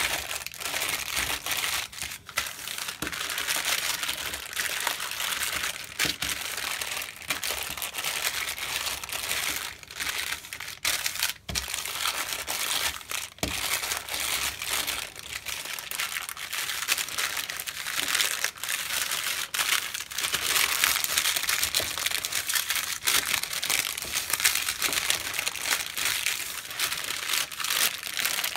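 Baking paper crinkling and rustling as a wooden rolling pin and hands roll and press over a slab of soft nut brittle between two sheets, with many small sharp crackles throughout.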